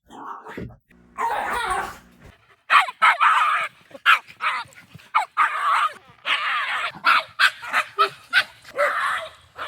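Mame shiba dog giving a string of shrill, yowling cries and short yips instead of ordinary woofs, the kind of call the owner likens to a mighty battle cry. There are several long cries of about a second each, with quick sharp yelps between them.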